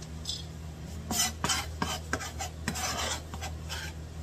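Gloved hand brushing and scraping crushed walnut crumbs across a plastic cutting board in short, irregular strokes, with a few light knocks, over a steady low hum.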